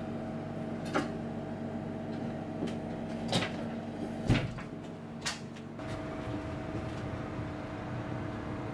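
Steady mechanical hum of kitchen equipment with several sharp knocks, the loudest about four seconds in; the hum changes character about six seconds in.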